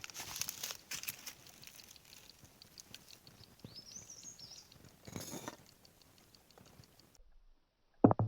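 Footsteps crunching through the forest floor, with a short chirping bird call about four seconds in. The sound drops out near the end, just before a brief loud knock.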